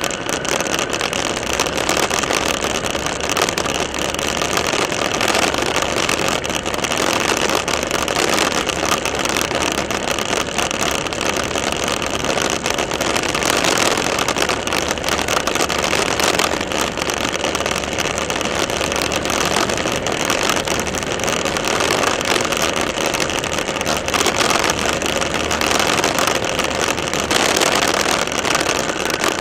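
A motorcycle riding along a dirt road, heard from a camera mounted on the bike: a steady, unbroken rush of engine, tyre and wind noise.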